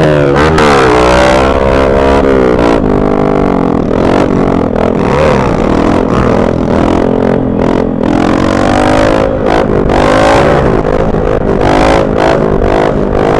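Motorcycle engines running hard, the pitch climbing under acceleration and dropping back at each gear change or throttle lift, with wind rushing over the microphone.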